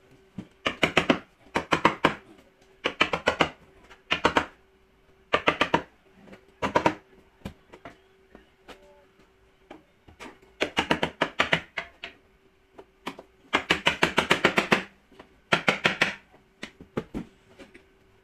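About ten short bursts of rapid clicking from a hand tool worked on the fasteners of a car's rear wheel-arch liner, with pauses of a second or more between bursts, over a faint steady hum.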